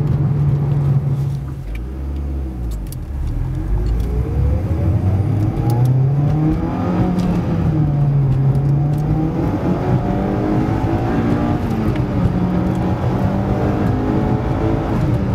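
Mitsubishi Lancer Evolution X's turbocharged 2.0-litre four-cylinder running through a 3-inch cat-back exhaust while driving. The note dips about two seconds in, then rises under acceleration twice, falling back in between, before settling into a steady cruise.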